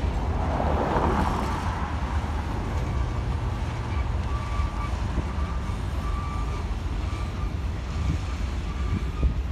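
Freight train of covered hopper cars rolling past: a steady low rumble of wheels on rail, with a faint high squeal that comes and goes and a brief rush of noise about a second in.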